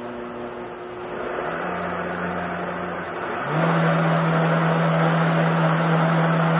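Countertop blender blending a thick muffin batter of oats, banana, egg and milk. The motor steps up in speed about a second and a half in, and again, louder, about three and a half seconds in, then runs steadily at high speed.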